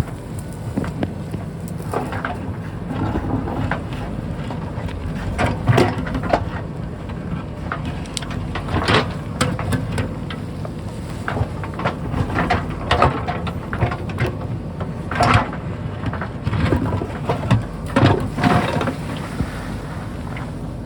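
JCB backhoe's engine running steadily, with scattered knocks and clatters from its digging throughout.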